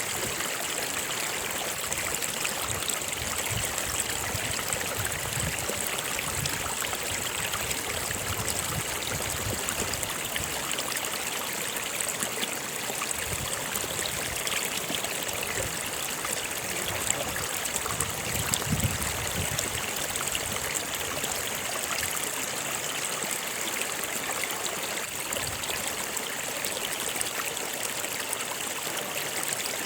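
A river or stream running and trickling steadily, with low surges of burbling now and then.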